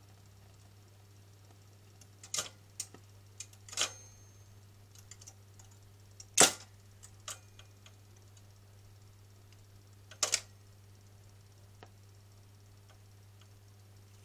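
Graetz Grazioso 7-inch record changer running through its change cycle: a series of mechanical clicks and clunks as the tonearm lifts, swings out and sets down at the edge of the next single. The loudest clunk comes a little past halfway. A steady low hum runs underneath.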